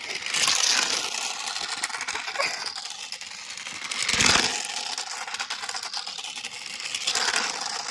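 Toy remote-control racing car running: its small electric motor whirs and its plastic wheels rattle over the ground. The sound swells three times, loudest around the middle.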